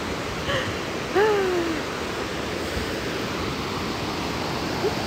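Steady rushing of the Storforsen rapids on the Pite River, an even wash of white-water noise. About a second in, a short voice sound with a falling pitch.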